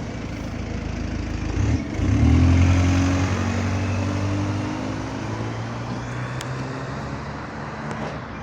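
Bus diesel engine pulling away under power, suddenly loud about two seconds in, then gradually easing off.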